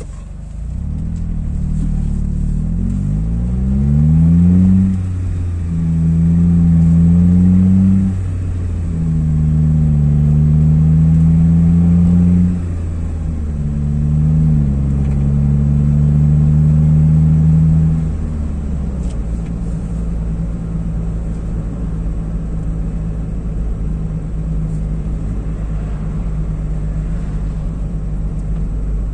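Car engine heard from inside the cabin, pulling away and picking up speed. The engine note climbs, drops back and climbs again several times as the car changes up through the gears, then settles to a steady lower hum at cruising speed about two-thirds of the way through.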